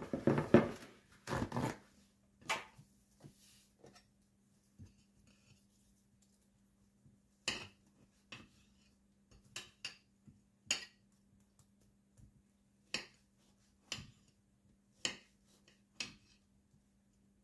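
A kitchen knife cutting through slices of soft loaf bread and knocking down onto a hard cutting board. There are a few louder knocks of handling at the start, then sharp clicks about once a second as each cut meets the board.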